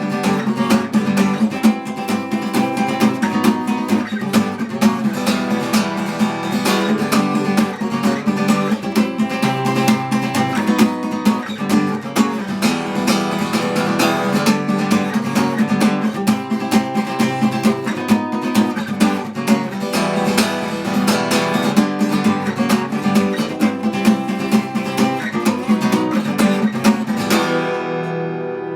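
Acoustic guitar strummed quickly and steadily in the instrumental part of the song. About a second before the end the strumming stops on a chord that is left to ring.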